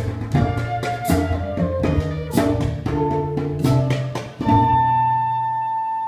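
Live acoustic ensemble: drums struck with sticks over cello and acoustic guitar. About four and a half seconds in the drumming stops and a long held note on a wooden transverse flute begins, with a low cello note sustained beneath it.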